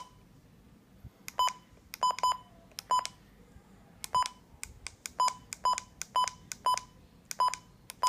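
Button beeps from a weather radio receiver as its keys are pressed: about a dozen short, single-pitch electronic beeps, each with a faint click. They come at uneven spacing, sometimes two close together, like a person stepping through the controls.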